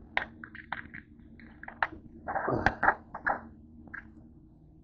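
A quick run of short rustles and small knocks with a dull thump about two and a half seconds in: handling noise as the camera is picked up and moved about.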